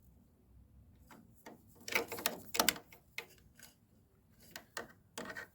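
Light clicks and rattles of wiring-harness connectors and wires being handled and pushed onto the wiper motor's washer-pump terminals, in scattered bunches.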